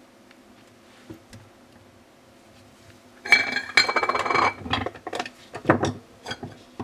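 Epson Artisan 50 inkjet printer mechanism crashing and grinding at switch-on, the loud crash and grinding sound of its failure. After a couple of faint clicks, about a second and a half of loud metallic rattling clatter with a steady high tone in it, then a string of separate knocks and short rattles.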